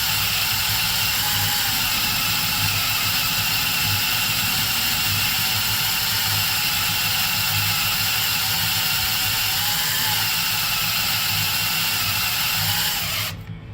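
Electric drill with a 10.5 mm bit running steadily as it bores into a steel truck-frame rivet, then stopping suddenly near the end.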